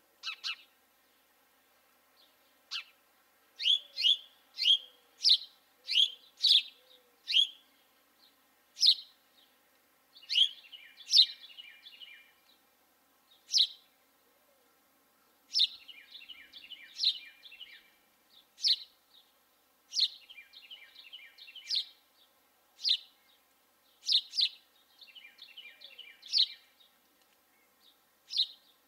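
Birds calling: loud sharp single chip notes about once a second, with bursts of rapid chattering in between.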